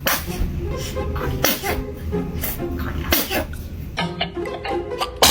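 A baby sneezing, several short sharp sneezes, over background music with a steady bass.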